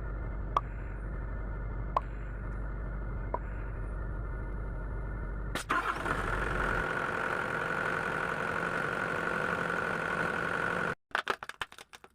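Sany SY75C excavator's diesel engine running steadily, growing louder and brighter about five and a half seconds in. It cuts off abruptly near the end, followed by a quick run of sharp clicks.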